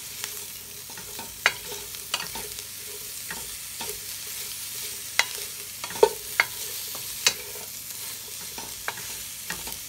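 Morels sautéing with garlic in a little olive oil in a stainless steel pot, sizzling with a steady hiss while a wooden spatula stirs them, scraping and knocking against the pot at irregular moments.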